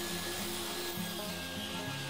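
Benchtop table saw running, ripping thin wooden strips, a steady whirring hiss over background music.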